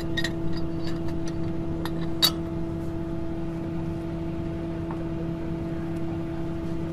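A motor running steadily with a low, even hum, and a few sharp metal clinks of pipe wrenches on steel well pipe, the loudest about two seconds in.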